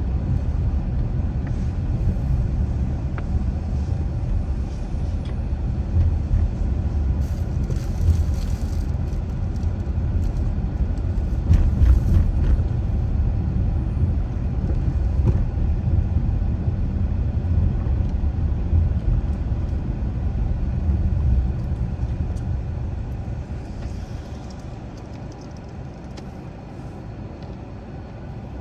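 A car driving along: a steady low rumble of engine and tyre road noise, getting quieter for the last few seconds.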